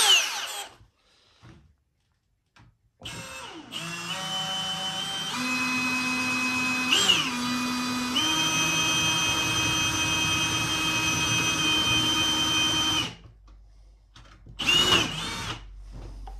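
Milwaukee Fuel cordless drill boring a pilot hole through thin galvanized sheet steel, using a larger bit. The motor whine starts about three seconds in, steps up in pitch a few times with a brief dip midway, and stops abruptly after about ten seconds. A short burst follows near the end.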